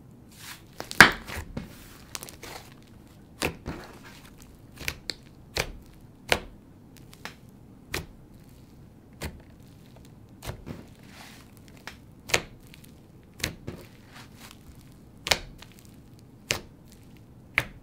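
Hands poking and squishing a thick cloud-cream and butter hybrid slime, giving irregular sharp pops and crackles about one or two a second, the loudest about a second in.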